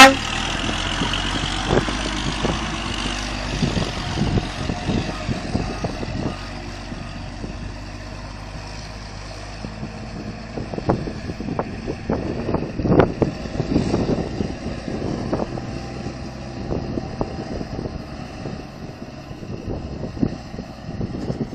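Old BMC dump truck's diesel engine running as the loaded truck pulls away over rough ground, with scattered sharp knocks, the loudest cluster a little after the middle.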